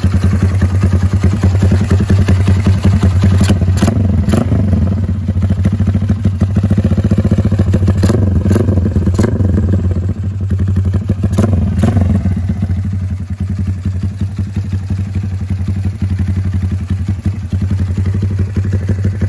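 Motorcycle engine running through a BSS aftermarket slip-on exhaust with a loud, choppy 'helicopter'-style exhaust note, steady throughout, broken by three short clusters of sharp cracks about 4, 8 and 11 seconds in.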